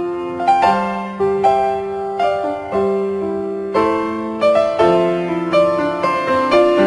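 Slow background piano music: notes and chords struck every half second to a second and left to ring over one another.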